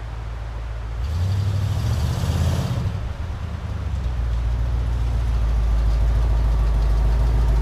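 A powered machine's motor runs with a steady low hum as the engine is lifted onto the stand. It starts abruptly and grows louder about a second in.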